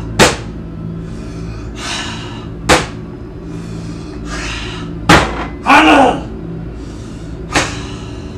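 Four sharp thuds about two and a half seconds apart, each led in by a loud breath, over a low droning music bed; the breath before the last thud carries a short voiced groan.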